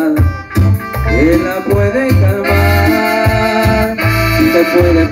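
A live band playing an instrumental passage of a Latin-style song: an electronic keyboard melody over a steady, pulsing bass line.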